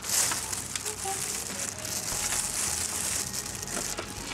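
Pellet cat litter being scooped and stirred in a plastic litter tray with a plastic scoop: a continuous gritty crunching and rustling with small clicks.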